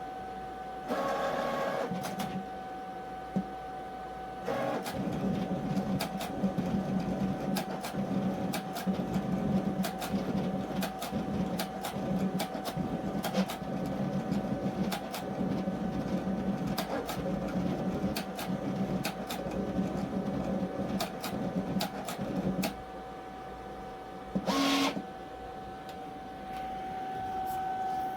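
Cricut Venture cutting machine at work on a label, its carriage and blade moving with a long run of rapid clicking and mechanical whirring over a steady hum. A short motor whir comes about a second in and another near the end.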